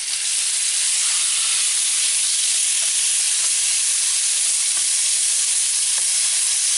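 Bite-sized chicken thigh pieces searing in hot avocado oil in a pan: a loud, steady sizzle that starts just as the chicken goes in, with a few faint clicks.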